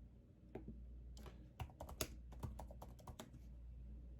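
Typing on the Logitech Folio Touch keyboard case for the iPad Pro: soft, irregular key taps in small runs, quiet, with a low hum underneath.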